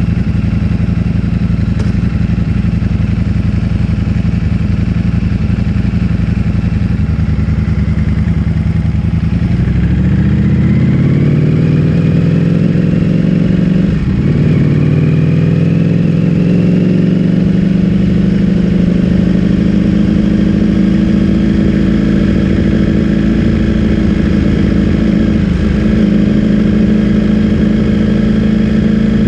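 Ducati Streetfighter V4S's 1103 cc V4 through an Akrapovic full-system exhaust, running steadily at low revs. About a third of the way in it pulls away with rising pitch, drops briefly at a gear change and climbs again, then holds a steady cruise.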